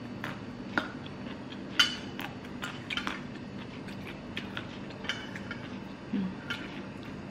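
Metal spoon clinking and scraping against a ceramic plate: a string of light, irregular clicks, the sharpest about two seconds in.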